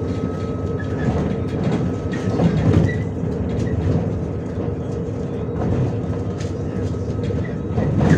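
Cabin sound of a MAZ-105 articulated city bus under way: a steady engine and drivetrain drone with a faint constant whine, the body rattling and creaking over the road. A few heavier thumps about two and a half seconds in and again near the end.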